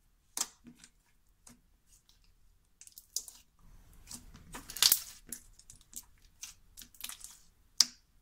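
Tan slime with dark brown foam chunks and white foam beads being squeezed and stretched, giving a string of sharp pops and clicks, with a longer squishy, crackling stretch around four to five seconds in.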